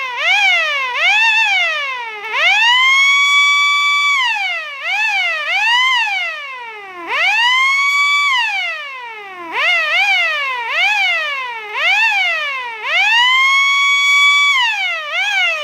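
Cheap under-hood car siren horn sounding loudly, cycling through a repeating pattern: a run of quick up-and-down whoops, then a long climb to a held high tone that falls away. The cycle repeats about every five seconds.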